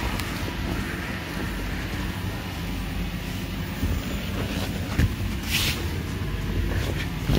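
Steady low drone of the electric blower fan that keeps an inflatable bounce house inflated, with a couple of short brushing noises about five seconds in.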